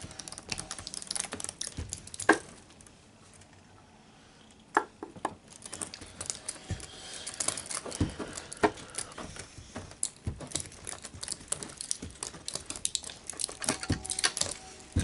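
Copper wire being unwound from an electric motor's winding and wadded up by hand: a run of light crinkling and clicking with a few sharper taps, quieter for a couple of seconds about three seconds in.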